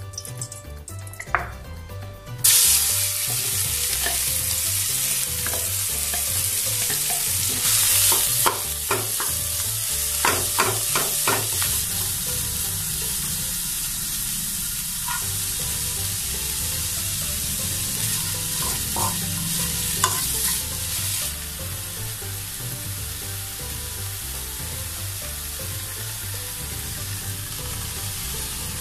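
Minced chicken sizzling in hot oil in a wok as it is stir-fried, with a spatula scraping and tapping against the pan. The sizzle starts suddenly about two seconds in as the meat goes into the oil. A quick run of sharp taps comes around ten seconds in.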